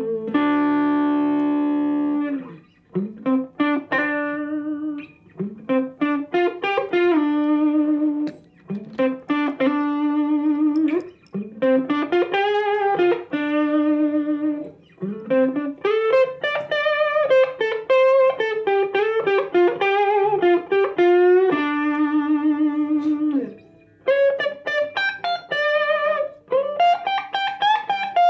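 Electric guitar playing a slow single-note lead melody, with bent and held notes and short pauses between phrases.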